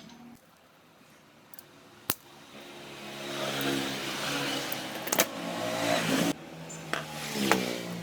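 Small electric motor starting after a click, running with its pitch rising and falling and a hiss over it, cutting off suddenly, then starting again briefly.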